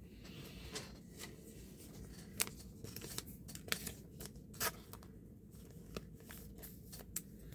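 Trading cards being handled, sorted and set down on piles: faint scattered clicks and light slides of card stock.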